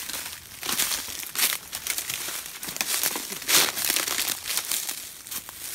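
Footsteps crunching through dry leaves and brittle twigs on a forest floor, in irregular crackly crunches.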